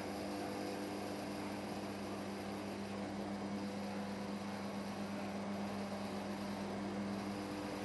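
Potter's wheel motor running with a steady hum while wet clay is shaped on the turning wheel.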